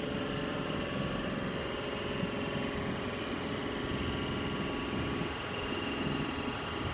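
Steady hum of a C-set double-deck electric train standing at the platform, its rooftop air-conditioning and auxiliary equipment running.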